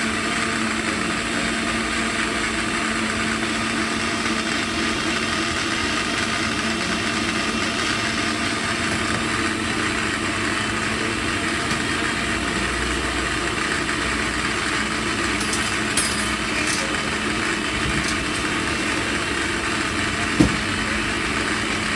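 Steady hum of idling engines and traffic with a constant low drone. A few light metal clinks from steel tins and lids handled on a steel counter, the sharpest about twenty seconds in.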